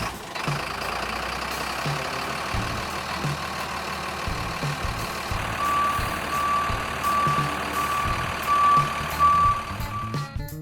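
Heavy truck engine running steadily. About halfway through a reversing alarm starts, beeping about twice a second.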